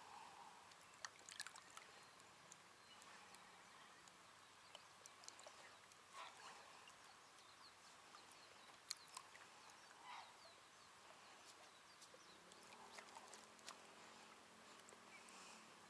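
Near silence: faint lakeshore ambience, with a few soft water sounds and scattered light ticks.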